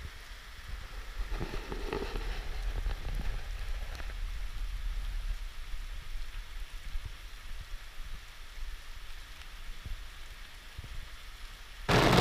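Steady rain falling, with many small drops tapping close by. Just before the end it cuts suddenly to much louder, denser rain on a car's roof, heard from inside the car.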